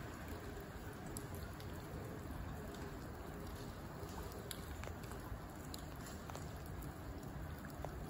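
Steady rush of river water running past rocks, with a few faint ticks scattered through it.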